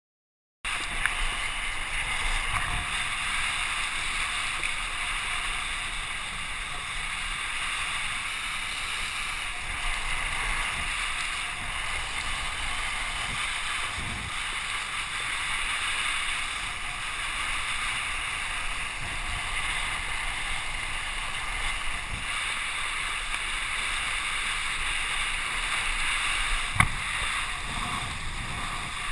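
Steady rush of wind and water spray from a kiteboard skimming fast across the water, picked up by the rider's action camera. There is a single sharp knock near the end.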